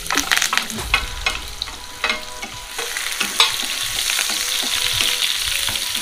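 Chopped onions frying in oil in a black non-stick pan, with a spatula clicking and scraping against the pan as they are stirred. The knocks are thickest in the first half, and a steady sizzle fills the second half.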